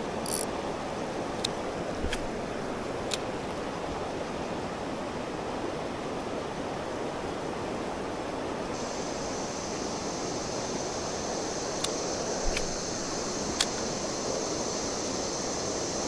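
Creek water running steadily over rocks and small rapids, with a few faint clicks. A steady high hiss joins about halfway through.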